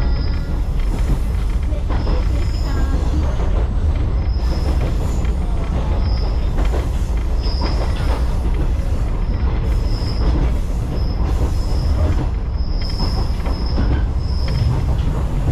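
Echizen Railway train running, heard from inside the car: a steady low rumble with short high-pitched wheel squeals coming every second or so.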